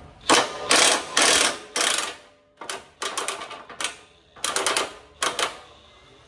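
About ten short bursts of rapid mechanical rattling from a tool working the bolts of a front differential mount. The first four, in the first two seconds, are the loudest; the rest are shorter and spaced unevenly.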